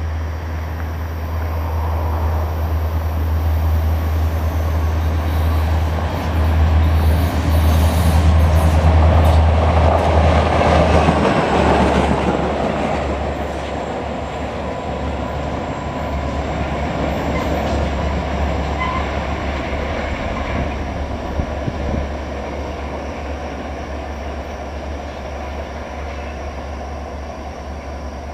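A pair of EMD SD40-2 diesel-electric locomotives, running light with their 16-cylinder two-stroke engines, approaches and passes. The deep engine drone and wheel-on-rail noise grow to their loudest about ten seconds in, as the lead unit goes by, then ease off as the engines pull away.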